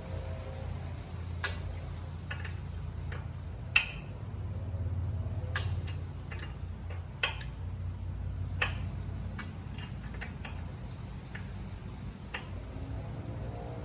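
Small metal wrench clicking and clinking on a nut and the exhaust hardware as a bolt is tightened: irregular sharp ticks, with a louder clank about four seconds in and two more near seven and nine seconds.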